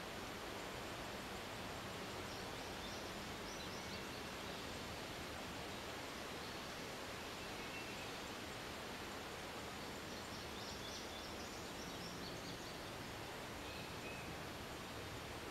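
Steady hiss of quiet woodland ambience, with faint, short bird chirps now and then, most around the middle and near the end.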